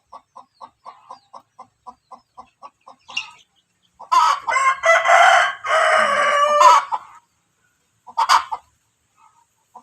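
A chicken gives a quick, even run of soft clucks, about five a second, then a rooster crows loudly for about three seconds, followed by one short squawk.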